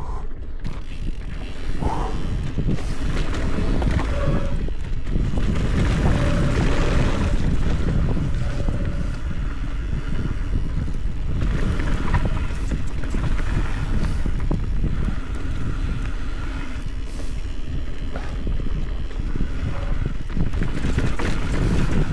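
Mountain bike riding fast down a rough dirt-and-rock trail: wind rushing over the helmet camera's microphone over the steady rumble and rattle of tyres, suspension and frame on the loose ground, with a few brief squeaks now and then.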